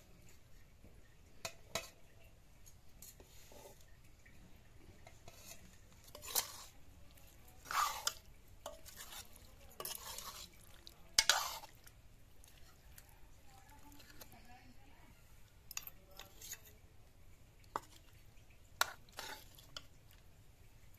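A steel ladle and serving spoon clink and scrape against stainless-steel bowls and a metal kadai as rice and fish curry are dished out. The sounds are scattered short clinks, the loudest a little past the middle.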